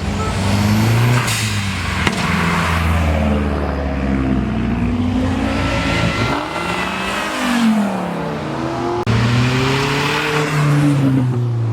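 Car engines and exhausts revving and accelerating away, the pitch climbing and falling again several times as cars pull off and pass. There is a brief sharp break about nine seconds in.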